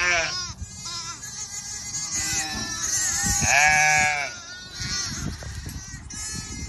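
Shetland sheep and lambs bleating, several overlapping calls, the loudest a long bleat of about a second about halfway through.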